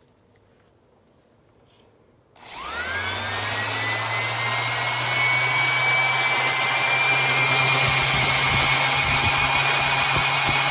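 Galax Pro 280W 5-inch random orbital sander switched on about two seconds in: its electric motor winds up with a rising whine, then runs at a steady speed.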